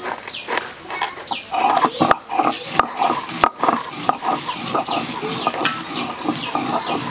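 Stone roller rasping and knocking as it is rolled back and forth over chopped onions on a flat stone grinding slab (shil-nora), crushing them to paste. A few sharp stone-on-stone knocks stand out, and short high chirps come and go in the background.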